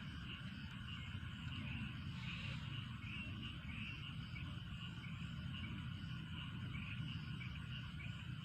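Frogs and insects calling in a steady, overlapping chorus, many small repeated calls with evenly spaced high chirps, over a low rumble.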